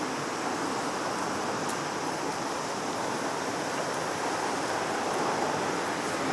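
Steady rushing noise with no distinct events, and a faint steady high-pitched tone above it.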